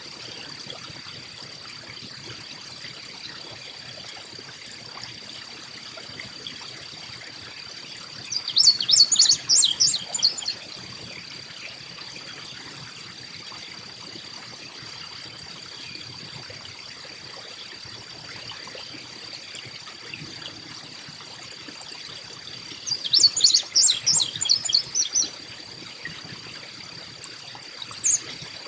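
Carolina chickadee calling: two bursts of rapid, high, chattering notes, about nine seconds in and again about twenty-three seconds in, with a single short note near the end. A constant high-pitched tone and a steady background hiss run underneath.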